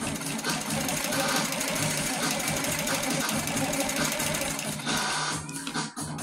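Baby Lock Coronet quilting machine stitching: a rapid, steady clatter of needle and motor as the head is moved across the quilt.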